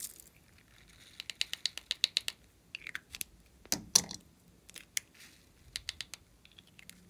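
Small fruit-shaped plastic containers being handled and twisted open, giving a quick run of ratchet-like plastic clicks about a second in, one louder sharp click near the middle, and a few more clicks near the end.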